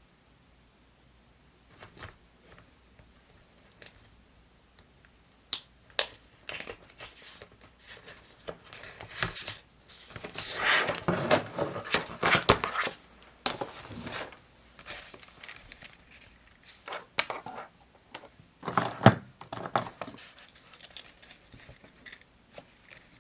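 Paper rustling and crinkling with sharp clicks and taps as diary-decorating materials are handled. It starts sparse, is busiest in the middle, and has another burst a little later.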